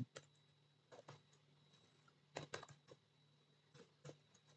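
Faint computer keyboard typing: scattered single keystrokes, with a short quick run of keys about two and a half seconds in.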